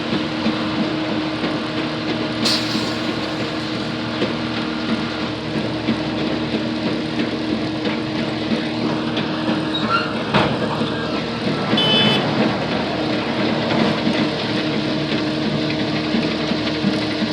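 Engine of heavy sugar cane harvesting machinery running steadily. There is a short hiss about two and a half seconds in, a knock near ten seconds, and a brief high beep about twelve seconds in.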